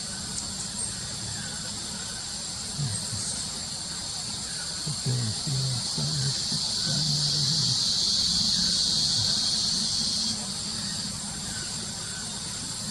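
A steady high-pitched insect chorus. It swells louder about three seconds in and drops back suddenly about ten seconds in. A few short, low sounds come in between.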